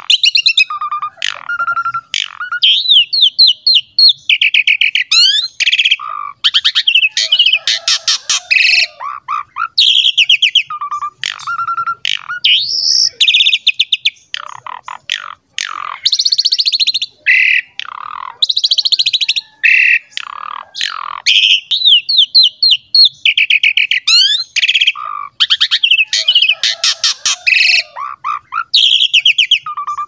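A pied starling (jalak suren) in full song, delivering a long, unbroken run of varied phrases: rapid trills, whistled notes and sharp clicks following one another with hardly a pause.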